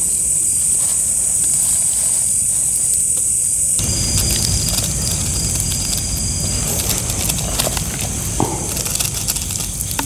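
Steady high-pitched drone of night-forest insects, which weakens about four seconds in. Through the second half, scattered clicks and scrapes of a knife cutting and peeling charred roasted cassava on a pan.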